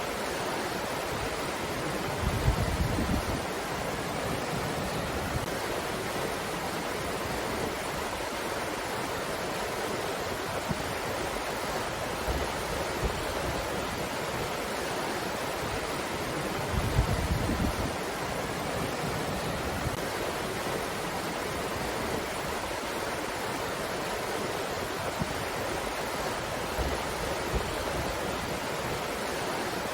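Steady rushing breeze with no break, and two short low rumbles of wind buffeting the microphone, about three seconds in and about seventeen seconds in.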